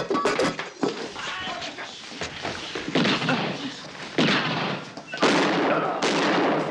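Gunfire in a shootout between a revolver and a handgun: loud shots about three, four and five seconds in, each ringing on after the bang.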